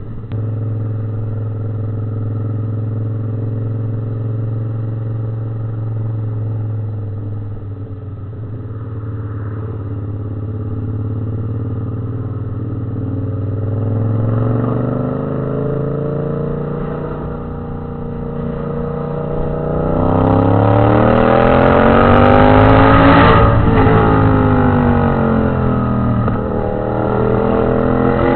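Yamaha MT-07 parallel-twin engine running at steady revs for several seconds, then revving up with a long rising pitch to a peak, dropping away, and climbing again near the end.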